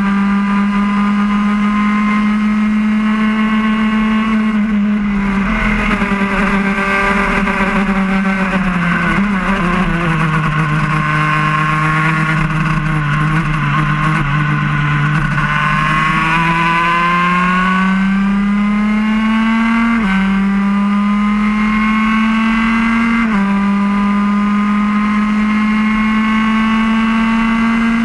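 Racing kart engine heard from the driver's seat at speed: its pitch holds, falls through the middle as the kart slows for a corner, then climbs again. About twenty and twenty-three seconds in the pitch drops suddenly and climbs once more, as the engine is shifted up.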